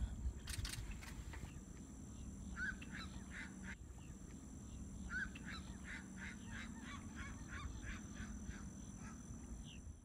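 Birds calling in two runs of quick, repeated short calls, about two and a half seconds in and again from about five seconds, over a steady low background hum.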